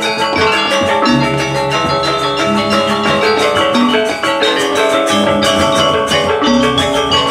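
Balinese gamelan gong ensemble playing a tabuh telu lelambatan piece: bronze kettle gongs (reong) and metallophones ring in dense interlocking patterns. Deep low notes swell in about a second in and again near the end.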